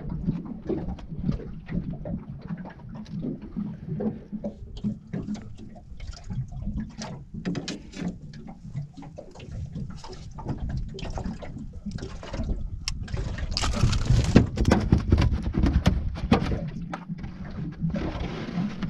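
Unhooking a flathead in a rubber-mesh landing net on a carpeted boat deck: scattered clicks and knocks of pliers, lure and fish being handled, over a steady low hum. A louder rush of noise comes in about thirteen seconds in and drops away about three seconds later.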